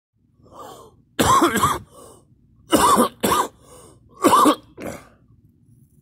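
A person coughing hard in a fit of harsh, hacking coughs that come in quick groups of two, with a softer cough before the first group and after the last.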